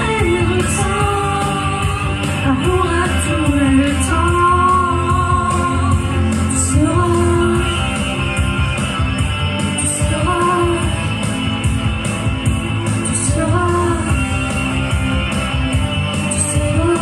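A man singing into a microphone over amplified backing music with a steady beat.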